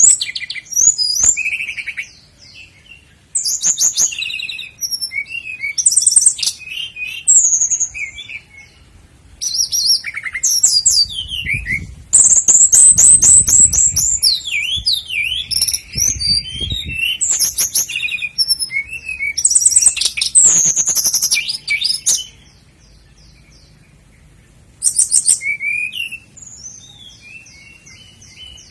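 Common nightingale singing: a run of varied phrases of rapid trills, whistles and fast repeated notes, with short pauses between them and a longer pause a little before the end.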